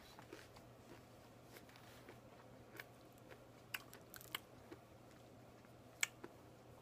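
Near silence: faint room tone with a steady low hum and a few soft, scattered clicks.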